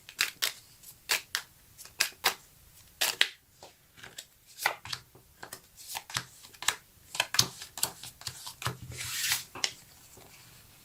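Fortune-telling cards being shuffled and laid down on a table: a string of sharp, irregular card slaps and snaps, with a longer swish of sliding cards near the end.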